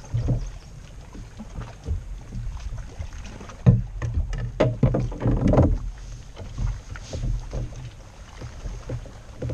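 Knocks and rattles of fishing gear being handled aboard a plastic sit-on kayak, clustered around the middle with the sharpest knock a little over a third of the way in, over a steady low rumble of wind on the microphone.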